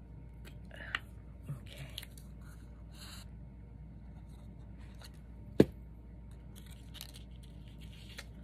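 Soft rustles and short scrapes of hands handling paper and a plastic glue bottle on a craft table, with one sharp tap a little past halfway.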